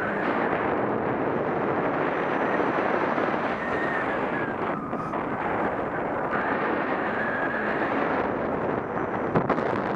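Steady rush of airflow buffeting the action camera's microphone during paraglider flight, with a faint whistle coming and going. A brief knock near the end.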